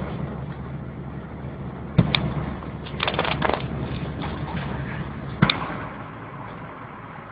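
Steady engine and road rumble heard inside a moving car. A sharp knock comes about two seconds in, a quick flurry of clicks and rattles follows a second later, and another sharp knock comes a little past the middle.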